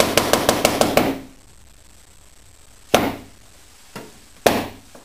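A wooden staff (the theatre's brigadier) struck on the stage floor. A quick run of knocks stops about a second in, then three spaced single knocks follow, the middle one softer, each ringing briefly: the French theatre's traditional knocks announcing the start of a scene.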